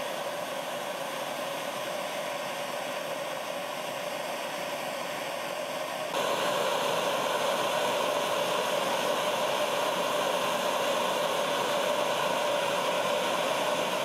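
Propane hand torch burning with a steady hissing rush. It gets louder about six seconds in.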